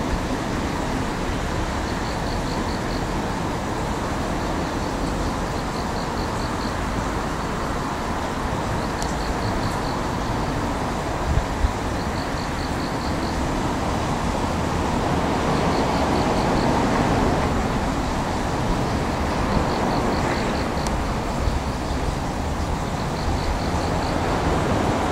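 Steady mechanical rumble of distant heavy machinery, swelling and easing around the middle. Over it, short trains of rapid high ticking repeat every couple of seconds.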